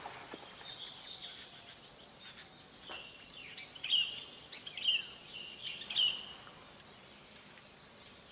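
Outdoor ambience with a bird giving a series of short chirps between about three and six seconds in, over a steady faint high insect hum.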